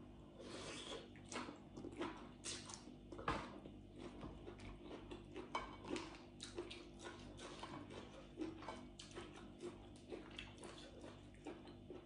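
Person chewing a mouthful of rice noodles and seafood: faint, irregular wet mouth clicks and smacks.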